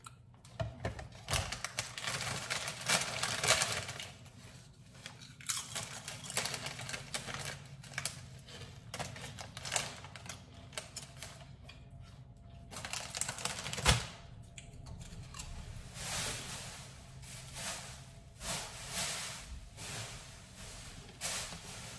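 Kitchen handling noises during cooking: irregular clicks, clatter and rustling, with one sharp knock about halfway through.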